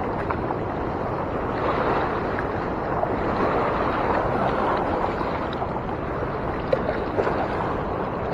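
Fast-moving river current rushing steadily, with a couple of faint clicks near the end.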